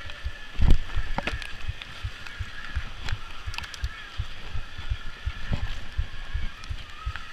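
Trek Slash 8 full-suspension mountain bike rolling fast down a wet dirt trail: constant rapid knocks and rattles from bumps and roots, with one hard jolt about a second in.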